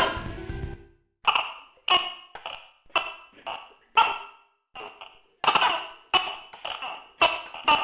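Tokay gecko calling: a series of short, clipped notes about two a second, dropping softer around the middle and coming back louder in the second half.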